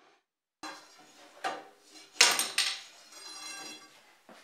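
Steel axle shaft rammed against the inner axle seal inside a Dana 30 axle tube to knock the seal out: a string of sharp metal clanks with ringing, the loudest about two seconds in, then about a second of ringing rattle.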